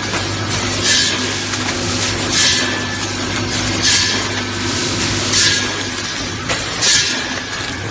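Vertical snack-packaging machine running through its bagging cycle: a short hissing rush about every second and a half over a steady machine hum.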